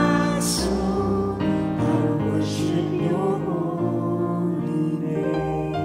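A small mixed vocal group of two women and two men singing a worship song in parts, with piano accompaniment.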